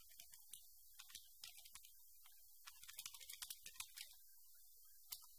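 Faint clicking of computer keyboard keys as a web address is typed, in two quick runs of keystrokes, then one last keystroke near the end.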